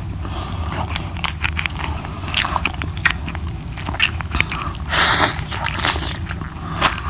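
Close mouth sounds of a man eating chicken curry with his hand: biting into a piece of chicken, with many short wet clicks and smacks of chewing, and one louder rushing noise about five seconds in.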